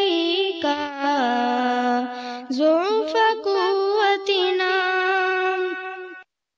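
High unaccompanied voices singing a slow Urdu religious nasheed in long, held and gliding notes, with a second, lower voice joining in harmony for a stretch in the first half. The singing stops suddenly near the end.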